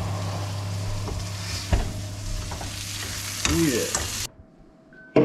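Meat and garlic sizzling in oil in a frying pan, with a couple of sharp clicks from tongs over a steady low hum. The sizzle cuts off sharply about four seconds in, leaving quieter clatter.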